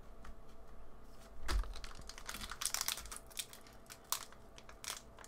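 Pokémon trading cards and a foil booster pack being handled: scattered light clicks and crackling rustles, with a soft thump about a second and a half in.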